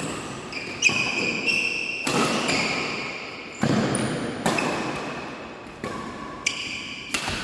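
Badminton rally: sharp racket hits on the shuttlecock about once a second, with sports shoes squeaking on the court floor between them.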